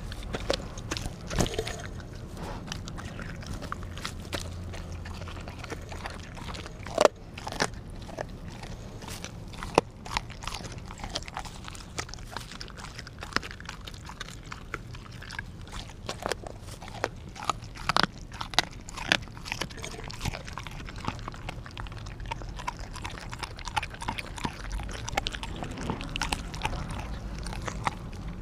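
Australian Kelpie chewing and crunching raw meat and bone right at the microphone: wet chewing with irregular sharp cracks, the loudest about seven and ten seconds in.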